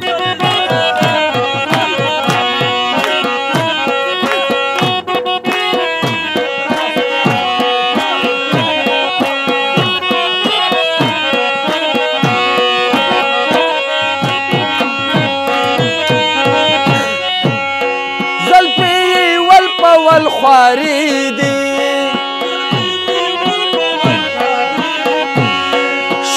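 Instrumental interlude of a Pashto folk song: a harmonium playing a melody over held notes, with a steady rhythm on a barrel hand drum whose strokes bend down in pitch.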